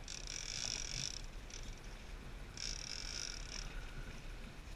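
Big-game fishing reel buzzing with a tuna on the line, in two high bursts of about a second each. A steady low hum runs underneath.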